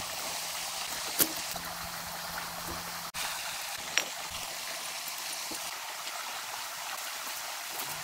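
Steady rush of a flowing river, with two short sharp clicks about a second and about four seconds in.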